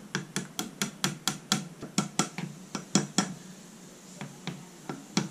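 Quick, light hammer taps, about four a second, driving wooden dowels into the holes in a bookcase panel. About three seconds in the tapping thins out to a few fainter taps.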